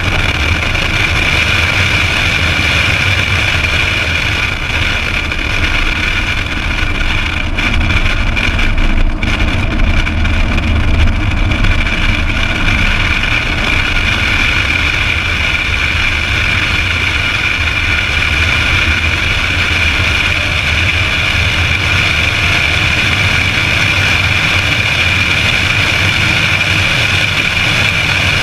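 2008 Ford Mustang Bullitt's 4.6-litre V8 running at an even, steady pitch, with road and wind noise from the moving car.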